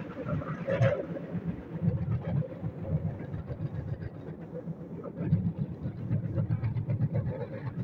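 Bamboo train (norry) running along the rails: a steady low rumbling rattle with many quick clacks from the wheels and the bamboo platform.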